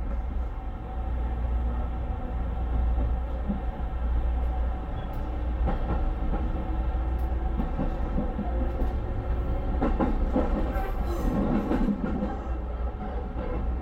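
JR West 221 series electric train heard from inside the car while running between stations: a steady low rumble, with the wheels clicking over rail joints every few seconds.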